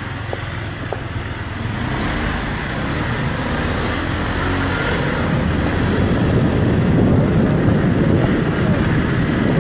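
Street traffic noise from vehicles on the move: a steady engine and road rush that grows louder over the second half.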